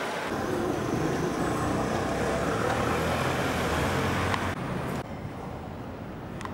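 City street traffic: a steady rumble of car engines and road noise. About five seconds in it cuts abruptly to a quieter background with a few faint clicks.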